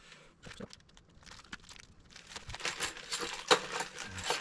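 Packaging and small parts being handled: rustling with scattered light clicks and clinks, sparse at first and busier and louder in the second half.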